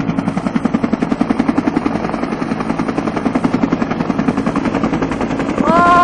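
Helicopter running close by, its main rotor blades chopping in a fast, even thudding rhythm over a steady engine hum. A person's loud exclamation cuts in near the end.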